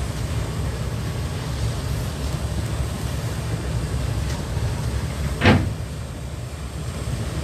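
Steady low rumble aboard a boat in heavy seas, with one loud wave slam against the hull about five and a half seconds in.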